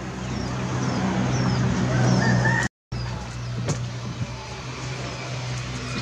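Farmyard ambience: small birds chirping and a chicken calling once, over a steady low hum. The sound drops out for a moment a little before halfway.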